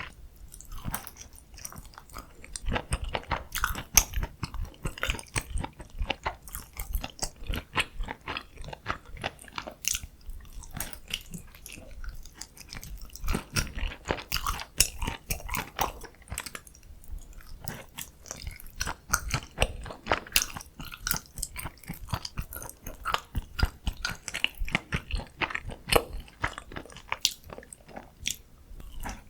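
Close-miked eating: continuous chewing and biting of food, with many short, crisp, wet clicks and crunches coming irregularly one after another.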